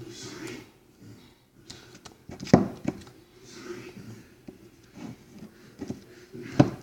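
Sticky slime being stirred and squished with a pen: soft squishing with sharp wet pops and clicks, the loudest about two and a half seconds in and again near the end.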